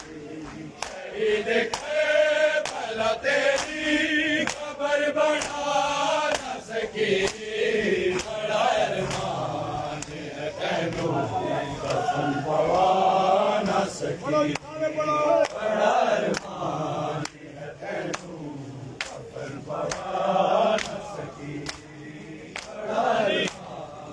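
Crowd of men chanting a noha (mourning lament) together, with a steady beat of sharp slaps from matam, the rhythmic beating of chests by the mourners.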